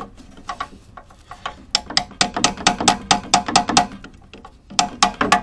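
Ratchet wrench clicking rapidly, about seven metallic clicks a second, in two runs with a short pause between, as a 16 mm socket is worked on a wheel hub bearing mounting bolt.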